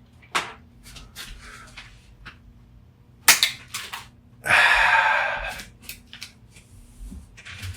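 Sharp plastic snaps and clicks from a wall adapter being cut and pried apart by hand, the loudest crack a little over three seconds in. About halfway there is a rough hiss lasting about a second.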